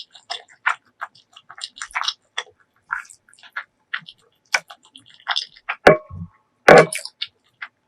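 Close-miked chewing with rapid, wet clicking mouth sounds, and two louder, fuller mouth sounds about six and seven seconds in.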